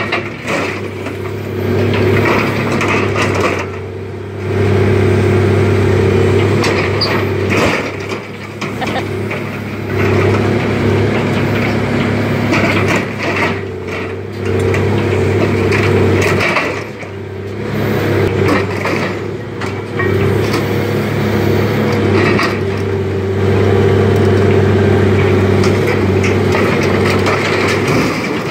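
Diesel engine of a tracked excavator fitted with an orange-peel grapple running under load, its loudness swelling and easing as it works. Now and then metal crunches and clanks as the grapple tears apart and drops pieces of a truck body and chassis.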